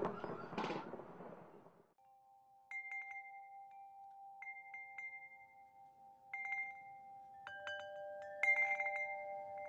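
A rumbling noise fades out over the first two seconds. Then sparse chime notes ring out at uneven intervals over two steady held tones that start suddenly.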